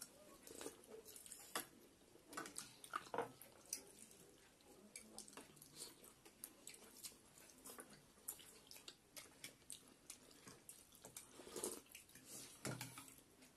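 Quiet eating of noodle soup: noodles slurped and chewed, with scattered small wet mouth clicks and smacks, a few a little louder now and then.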